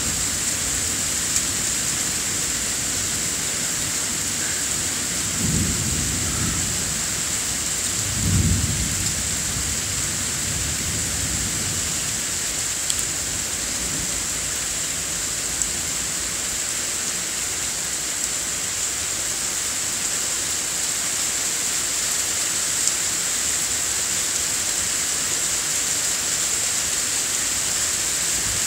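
Steady rain hissing during a thunderstorm, with two short low rolls of thunder about six and eight seconds in; the second is slightly louder.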